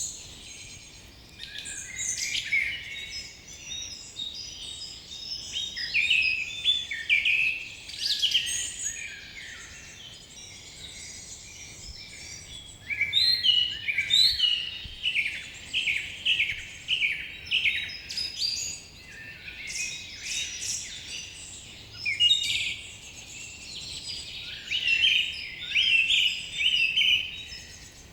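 Songbirds chirping and singing in phrases of quick, high, downward-slurred notes, several a second, with pauses of a few seconds between phrases, over a faint steady background hiss.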